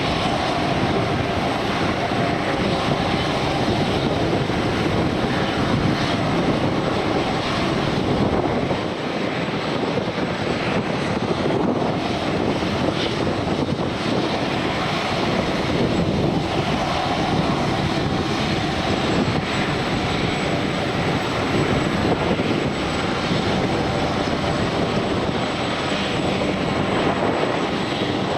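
Airliner engines running steadily: a continuous broad rushing noise with a faint high whine.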